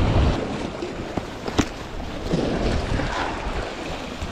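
Sea surf washing against shore rocks, with wind buffeting the microphone that dies down just after the start. A sharp click about one and a half seconds in.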